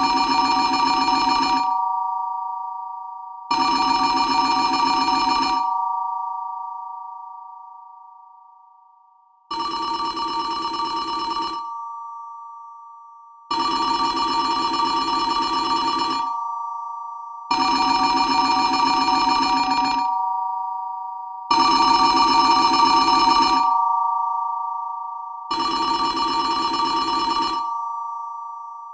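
Telephone ringing in repeated rings of about two seconds each, roughly every four seconds, seven rings in all. The ring tone lingers and fades between rings, and there is one longer pause after the second ring.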